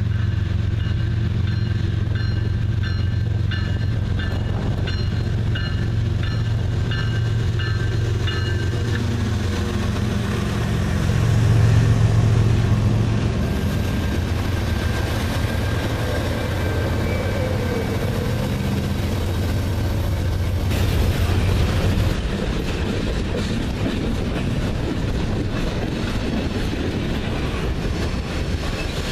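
CSX freight train passing close by: the diesel locomotives' engines drone as they approach and go past, loudest a little over ten seconds in. The loaded freight cars then follow with rolling wheel rumble and clickety-clack. A bell rings repeatedly, about twice a second, through the first nine seconds or so.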